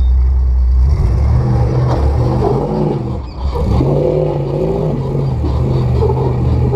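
Rock crawler's engine at a low idle, then revved up about a second in as the vehicle climbs a steep rock ledge. The revs waver, drop briefly past the middle, and pick up again to a steady higher pull.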